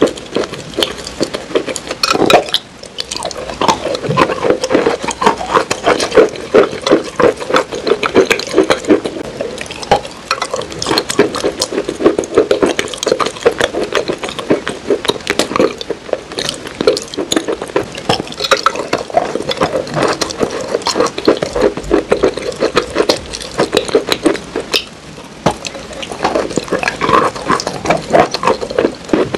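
Close-miked chewing of a crumbly dessert coated in black cookie crumbs: a steady, dense run of small crunches and wet mouth clicks, with a short dip just after two seconds in and again around twenty-five seconds.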